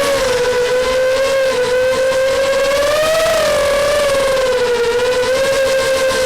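DRS180Pro racing quadcopter's 2206 motors and propellers whining steadily, the pitch wavering up and down with the throttle and rising briefly about three seconds in.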